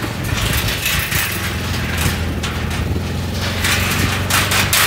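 Motorcycle engine running steadily at low speed, with a rushing noise that comes and goes over it, strongest near the end.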